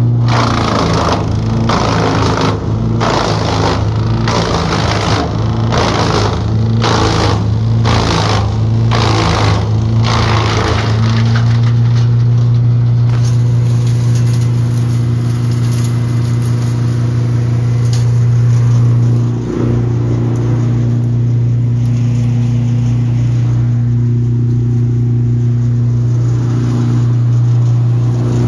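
Timberwolf TW160PH wood chipper running steadily while chipping branches. For the first ten seconds or so the blades chop the wood in a quick series of loud cracks, about one and a half a second. After that the machine runs on empty with a steady engine hum.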